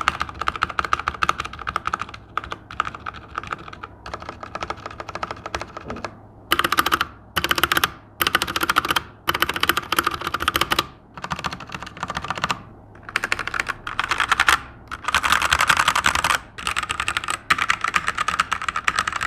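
Typing on a Machenike K500 hot-swap mechanical keyboard with Huano switches: quick runs of keystroke clicks broken by short pauses every second or two.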